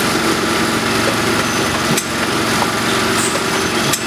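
Mounting machinery on a packaging production line running with a steady mechanical hum, with a sharp click about two seconds in and another near the end.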